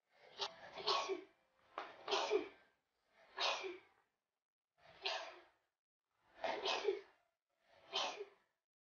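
A teenage girl sneezing over and over, about six sneezes roughly one every second and a half: the uncontrollable, non-stop sneezing of an illness that doctors have not been able to diagnose.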